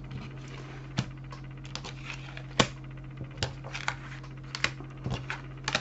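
Light, irregular clicks and taps of things being handled on a tabletop, about a dozen, with the sharpest about two and a half seconds in. A steady low electrical hum runs underneath.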